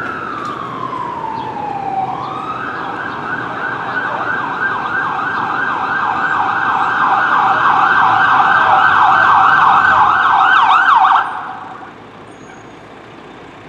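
Fire engine siren on an emergency response: a wail falling in pitch, then switching to a rapid yelp that grows louder as the truck approaches. The siren cuts off suddenly about eleven seconds in, leaving the quieter sound of the truck.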